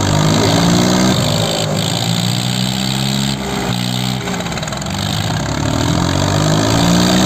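Swaraj 855 tractor's three-cylinder diesel engine running and revving up, its pitch rising just after the start and again near the end.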